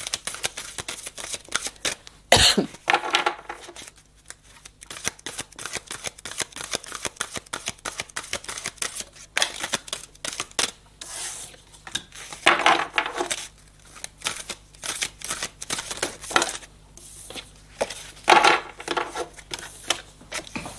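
A deck of cards being handled and shuffled: a run of light card clicks and taps, with a few longer rustling shuffles.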